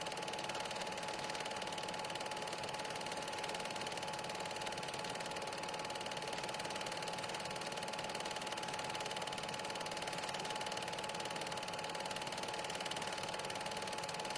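Steady mechanical whirr of a Super 8 film projector running, with a constant hum-like tone over an even hiss, unchanging throughout.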